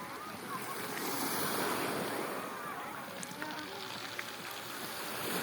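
Black Sea surf washing onto the shore, one wave swelling and breaking in the first two seconds, then easing.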